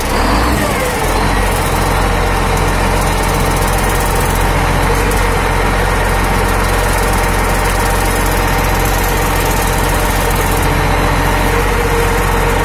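BG825 motor grader's diesel engine idling with a steady, loud, low drone that holds unchanged throughout.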